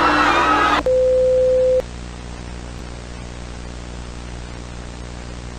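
Music cuts off abruptly under a second in, replaced by a single steady electronic beep tone lasting about a second. It then gives way to a steady hiss of static with a low hum underneath.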